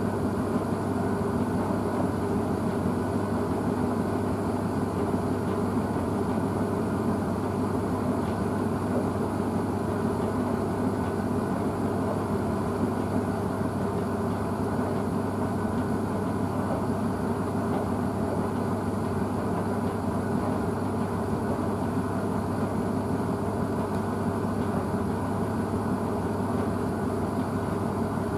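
Blomberg WNF9448 front-loading washing machine spinning its load at speed: a steady, even drum and motor hum with no change in pitch.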